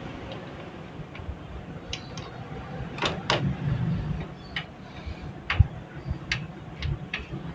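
Irregular small clicks and knocks of plastic cable connectors being handled inside a computer case, as the front-panel USB connector is fitted onto the motherboard's header.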